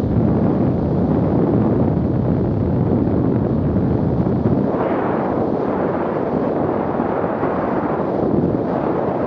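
Wind rushing and buffeting over the helmet-mounted microphone of a motorcycle riding at about 40 mph, with the bike's running noise mixed in. The rush swells briefly about halfway through.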